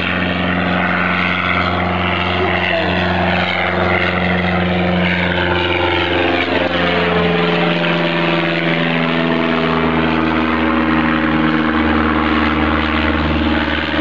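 Low-flying plane passing overhead: a steady engine drone whose pitch drops slightly about halfway through as it goes by.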